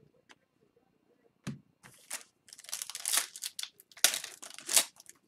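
Foil trading-card pack wrapper crinkling and tearing as a pack of hockey cards is opened by hand, in a dense run of crackles starting a couple of seconds in, after a soft knock.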